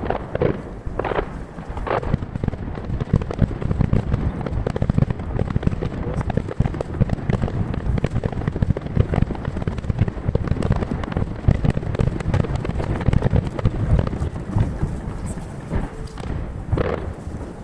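Aerial firework shells bursting in rapid, dense succession, their reports echoing. The recording is sped up threefold, so the booms crowd together.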